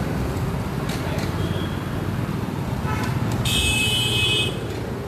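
Steady rumble of street traffic, with a loud, shrill high-pitched tone about three and a half seconds in that lasts about a second.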